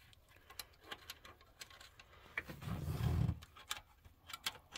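Light metallic clicks and taps of a tool working a stuck lifter out of its bore in a GM 5.3L V8 block, with a louder low sound lasting under a second about three seconds in.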